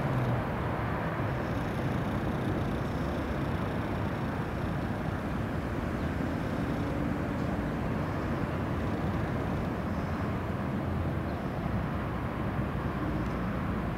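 Steady background rumble with no distinct events.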